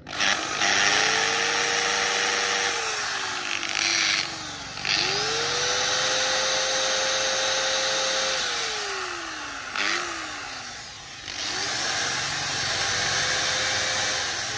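Makita 6950 corded electric screwdriver running free with no load: three runs of a few seconds each, each spinning up to a steady whine and winding down as the trigger is let go, with a short trigger blip between the second and third.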